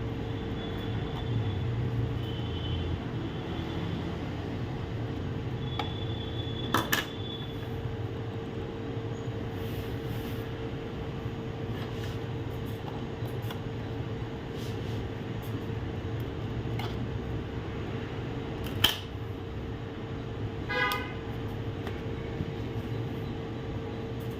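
Steady background hum with a few sharp clicks and knocks from a laptop's screws and plastic bottom cover being handled on a workbench.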